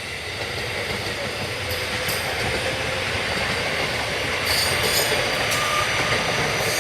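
Electric train running alongside the platform, its rumble building steadily louder, with wheel clicks over the rail joints and faint squealing whines in the second half.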